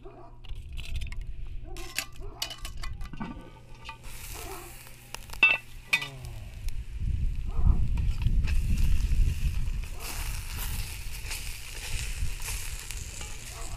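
Cast-iron Dutch oven lid lifted off with metal clinks and knocks, then the hot stew inside sizzling as a utensil stirs it. A low rumble, the loudest part, sits in the middle.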